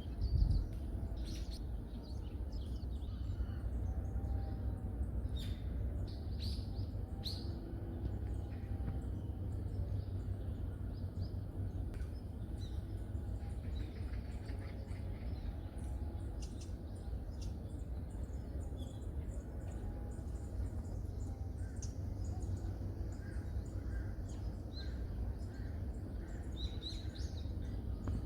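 Wild birds chirping: short, high calls scattered throughout, over a steady low rumble, with a brief thump just after the start.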